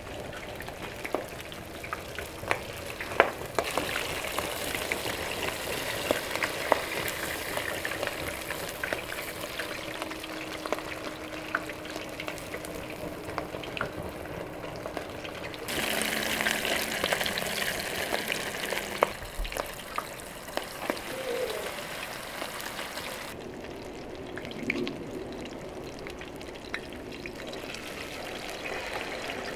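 Fish sizzling as it fries in a pan of oil, with sharp clicks of metal tongs as pieces are turned and lifted out. The sizzle jumps in loudness abruptly a few times and is fainter near the end.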